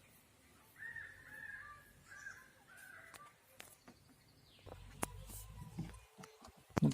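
A crow cawing four times in quick succession, followed by scattered clicks and knocks, the loudest one near the end.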